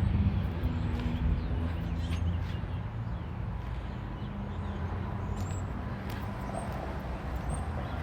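A motor vehicle engine running with a low hum over street traffic noise, louder for the first two or three seconds and then steadier and a little quieter.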